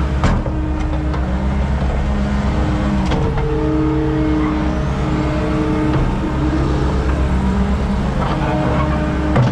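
Skid steer engine running steadily under work, with mid-pitched tones that shift and come and go, and a few sharp clanks.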